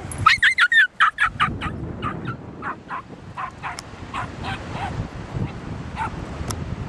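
A dog yelping in a rapid run of high, excited barks, loudest in the first second and a half, then fainter and more spaced out. Wind rumbles on the microphone underneath.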